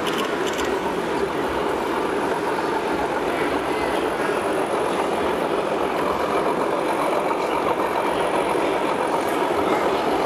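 Steady background din of a model railway exhibition hall, with an even engine-like hum as the layout's diesel locomotives run.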